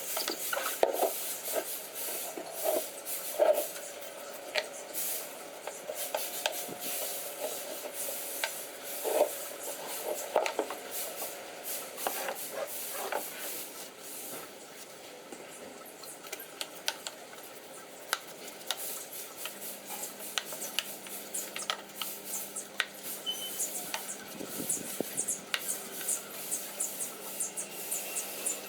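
Hissing spray from cleaning equipment, with scattered clicks and knocks throughout. A steady low hum joins about two-thirds of the way in.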